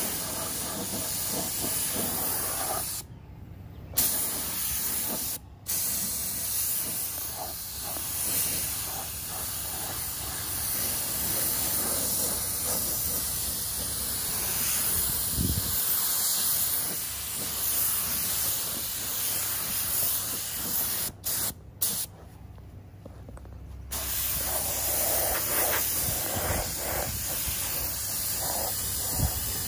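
Gravity-feed air spray gun hissing as it sprays single-stage paint. The trigger is let go for a few brief pauses, with a longer pause about three-quarters of the way through.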